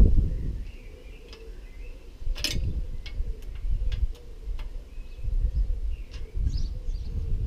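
Wind buffeting the microphone, with birds chirping now and then. About two and a half seconds in there is one sharp metallic clink, then a few light ticks, from hand tools at work on a bicycle crank bolt.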